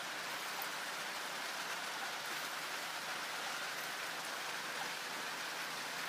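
Pieces of pitha batter frying in hot oil in a steel wok: a steady sizzle.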